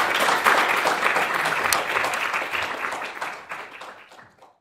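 Audience applauding in a lecture hall, fading away over the last second or so.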